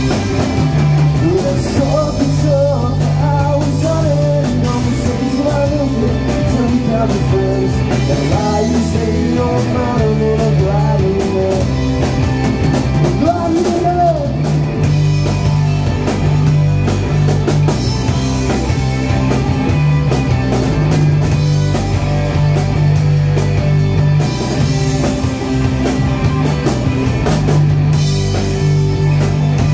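Live rock band playing loudly and continuously, with drum kit and guitar and a wavering melodic line.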